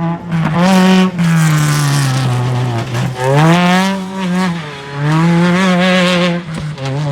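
Off-road vehicle engine revving up and down repeatedly, its pitch rising, holding and falling about three times.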